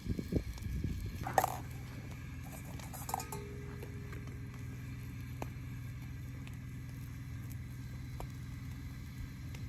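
A few light knocks and clinks of camp cookware and utensils, one sharp clink about a second and a half in and a smaller ringing one around three seconds, over a steady low hum.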